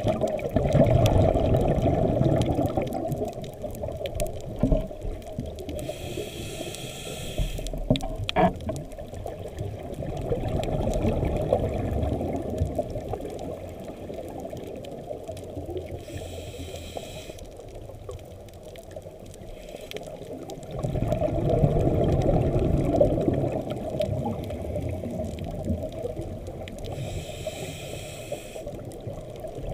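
Scuba diver's breathing through a regulator, heard muffled underwater: long bubbling swells of exhaled air, broken by a short hiss of inhalation about every ten seconds, three times.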